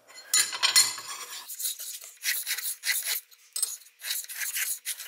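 A steel scribe scratching a center line along a knife blade's edge coated with layout fluid, as the blade slides over a granite surface plate. The scraping comes in a series of short strokes with brief gaps between them.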